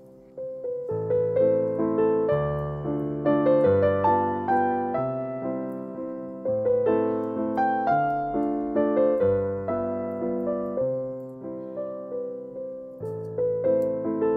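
Background piano music: a gentle melody of struck notes over low chords, starting about half a second in.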